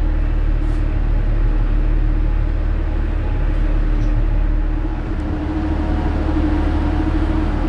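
Steady low engine rumble with a constant humming tone, dipping slightly about five seconds in.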